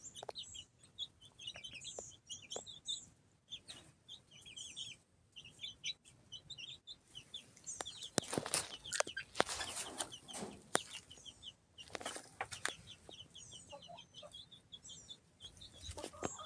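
Silkie–Polish cross chicks peeping, many short high peeps overlapping, with scattered clicks and rustling that grow busier about eight to eleven seconds in.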